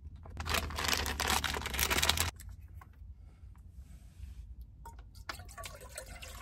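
Plastic gnocchi packet rustling and crinkling as it is handled, with many light clicks, for about two seconds. Then it goes quieter, with a few scattered clicks and knocks near the end.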